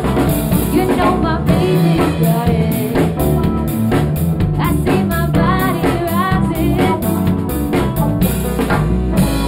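Band music: a woman singing over a drum kit, bass and piano.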